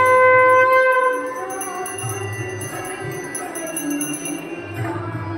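Conch shell (shankh) blown in one long steady note that ends about a second in. A small hand bell rings rapidly on after it.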